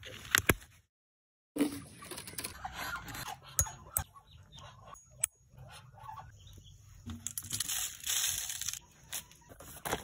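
Hand-handling noises: several sharp clicks and taps, then a stretch of plastic rustling about seven to eight and a half seconds in.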